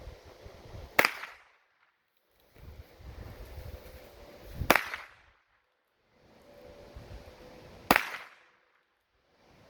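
An old .22 revolver firing three single shots, each a sharp crack, about three seconds apart.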